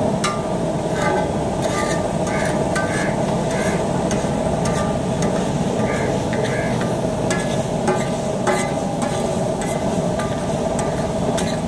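A metal spatula repeatedly chopping and scraping onions and tomatoes on a large flat iron tawa, with many sharp irregular clicks and scrapes. Underneath is a steady sizzle of the vegetables frying in oil on the hot griddle.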